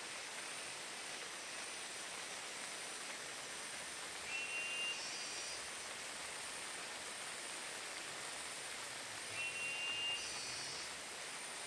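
Steady hiss of rain falling in the forest. A short, high call sounds twice, about five seconds apart.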